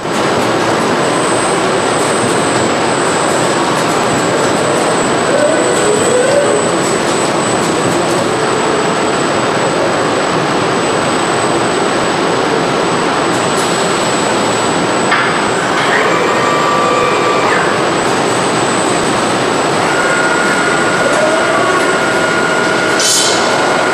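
Steady, loud running noise of an automated production line: a dense machine hiss and hum with a thin high whine throughout. Short whirs rise about five seconds in and again near the end, and there are a few clicks in between.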